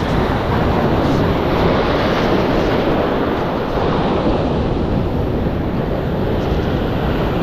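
Ocean surf washing steadily, with wind noise rumbling on the microphone.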